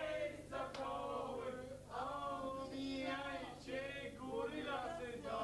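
A man's voice singing, with a few long held notes, over a steady low hum.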